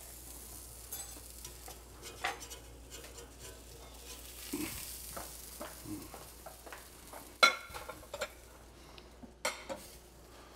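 Metal spatula scraping and clinking on a hot stovetop as a piece of cooked sea bass is lifted off, over a faint sizzle. A sharp clink about seven and a half seconds in is the loudest sound, and there is another about two seconds later.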